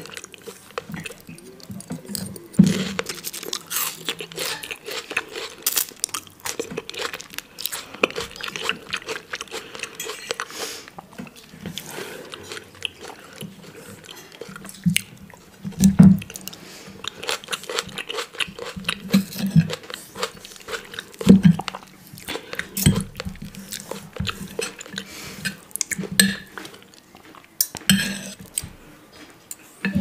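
Close-miked chewing, biting and mouth sounds of a person eating Swedish meatloaf and boiled potatoes, in irregular bursts. Knife and fork click and scrape against a ceramic plate between bites.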